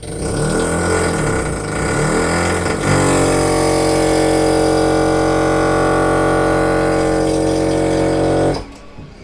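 Motorcycle engine revving up and down several times, then held at steady high revs for about five seconds before cutting off suddenly.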